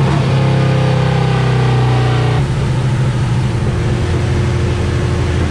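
Harley-Davidson Road Glide's V-twin running hard at high revs on a chassis dyno. About two and a half seconds in the throttle is shut and the engine drops off to a lower, rougher run.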